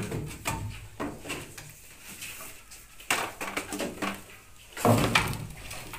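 Bamboo scaffolding poles knocking and clattering as they are worked loose from under a concrete slab. A louder crash comes about five seconds in.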